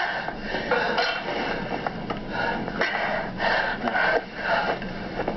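A woman gasping and heaving for breath in ragged, noisy breaths, from two film soundtracks playing at once and heard through computer speakers.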